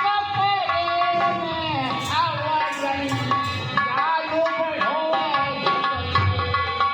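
Bhajan music: tabla playing a steady rhythm under a gliding, bending melody line.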